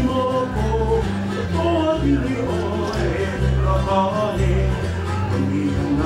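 Live Hawaiian hula song: a man singing over a strummed ukulele, with low bass notes about once a second.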